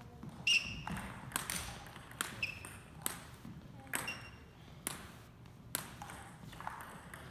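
Table tennis ball being struck back and forth in a rally: sharp clicks of the ball off the paddles and the table every half second to a second, some with a short ringing ping.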